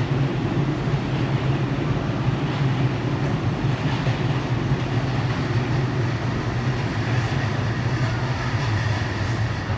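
JR electric commuter train running past the platform, a steady rumble with a low hum.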